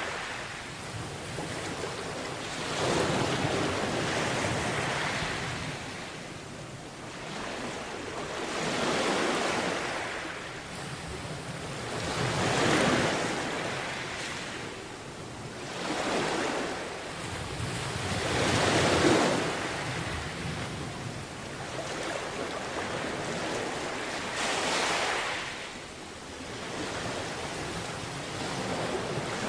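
Small sea waves breaking and washing up a beach, swelling and fading every few seconds, with some wind on the microphone.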